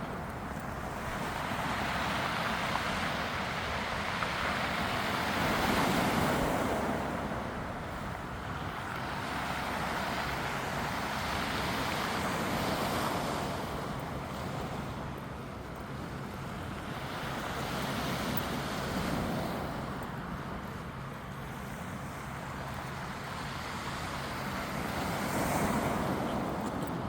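Sea waves breaking on the beach: a steady wash of surf that swells and falls back about every six to seven seconds.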